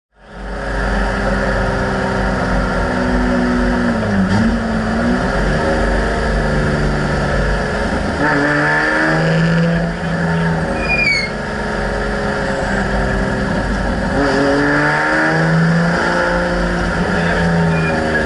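Race car engine heard from inside the stripped cabin of a BMW E30, running hard on track. Its pitch climbs and drops several times through gear changes and braking. It fades in at the start.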